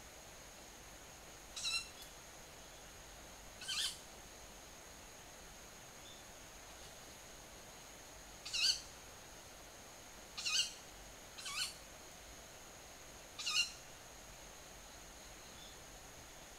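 Six short, high-pitched calls from a bird calling at dusk, spaced irregularly one to five seconds apart. The recordist wonders whether they come from young owls.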